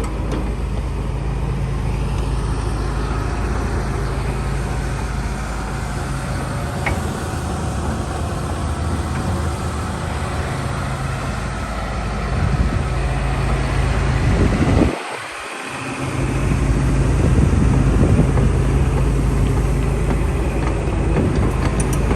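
Hitachi ZX225USR-6 crawler excavator's diesel engine running steadily under working load. It grows louder about twelve seconds in, drops briefly about three seconds later, then runs louder again.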